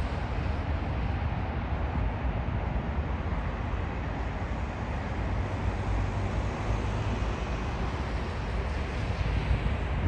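Jet engines of a British Airways four-engined airliner rolling out after touchdown, heard from a distance as a steady low rumble.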